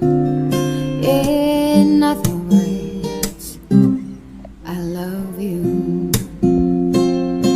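Background music led by acoustic guitar, with pitched notes changing throughout.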